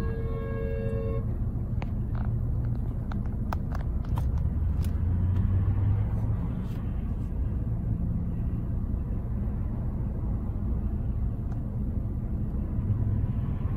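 Steady low rumble of a vehicle, heard from inside the cabin. A car horn is held and stops about a second in, and a few sharp clicks follow.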